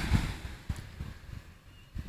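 Wind buffeting the microphone of a handheld camera: uneven low rumbles, strongest in the first half and dying away near the end.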